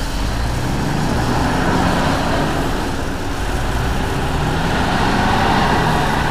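Wheel loader's diesel engine working under load, its pitch drifting slowly upward, while a bucket of gravel is loaded into a steel tipper truck body with a building rushing, rattling racket.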